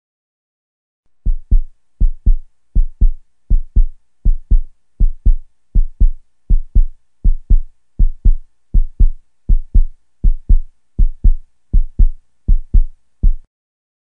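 Heartbeat sound effect: a steady lub-dub of paired low thumps, about 80 beats a minute, starting about a second in.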